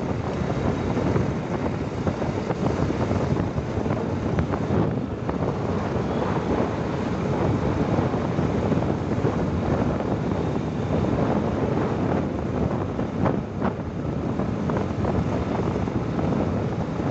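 Steady wind buffeting the microphone, mixed with the road and engine noise of the moving vehicle carrying it.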